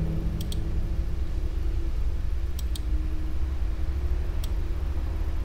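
Computer mouse clicking: a quick double click about half a second in, another double click around the middle and a single click near the end, over a steady low hum.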